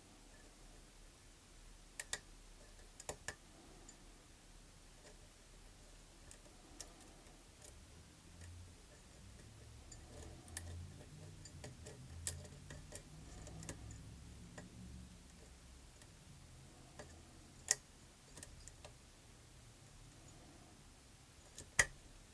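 Faint, irregular clicks of a metal lock pick working the pins of a pin-tumbler lock, a few of them sharper than the rest, with a low rumble in the middle.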